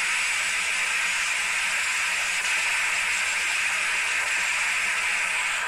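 Steady, loud hissing drone of a ship's engine-room machinery and ventilation, with a faint low hum underneath.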